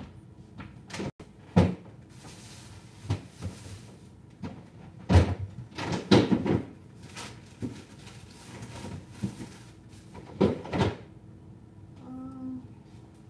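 Kitchen cupboard, pantry and refrigerator doors opening and closing, with a string of clunks and knocks as things are moved about while searching for food; the loudest knocks come about five to seven seconds in and again near eleven seconds.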